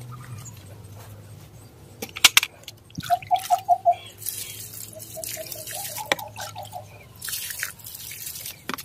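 Diluted coffee-powder fertilizer liquid poured from a small bowl onto a potted plant's soil, splashing and trickling in two pours. A few sharp knocks about two seconds in as the bowl is dipped into the plastic bucket.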